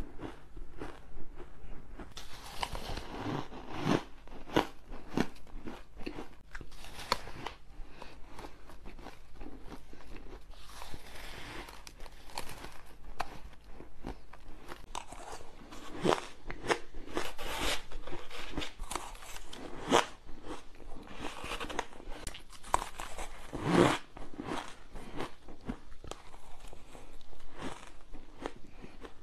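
Shaved ice being bitten, crunched and chewed close to a clip-on microphone, a dense, irregular run of sharp crunches throughout.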